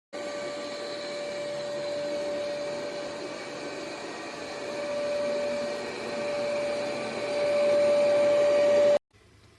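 ECOVACS DEEBOT T80 Omni robot vacuum running, a steady motor whine over a suction hiss that grows louder towards the end and cuts off suddenly near the end.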